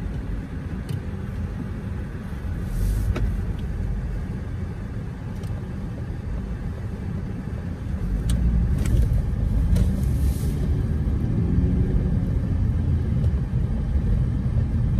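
Car engine and road noise heard from inside the cabin while driving: a steady low rumble that grows louder about eight seconds in. A few faint clicks are scattered through it.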